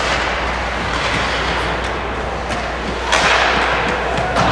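Ice hockey play on a rink: a steady background din with a few short sharp clacks, and a louder scraping hiss about three seconds in.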